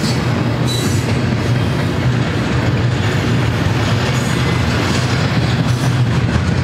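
Loaded double-stack intermodal well cars rolling past: a steady rumble of steel wheels on rail.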